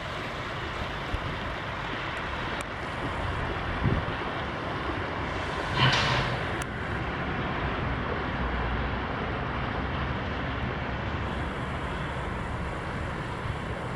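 Diesel engine exhaust of a 1972 inland motor tank ship running steadily as the ship passes, with a low rumble under a broad noise. A short hissing burst comes about six seconds in.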